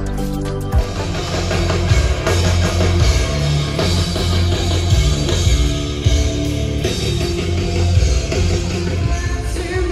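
Rock band playing loud over a PA, electric guitar and drum kit with a steady beat; the full band fills in about a second in.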